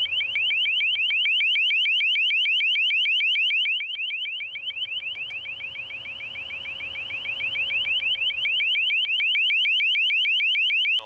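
Long Range Acoustic Device (LRAD) sounding a warbling deterrent tone: rapid high-pitched rising sweeps, about seven a second. It grows quieter for several seconds in the middle while the emitter's face is turned away, then comes back full strength when it points forward again.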